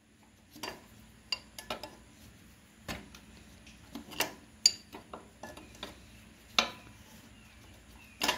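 Irregular metal clinks and ticks of a wrench working the fan-belt adjustment nut on a 1950 Farmall Cub's fan pulley, a dozen or so separate knocks.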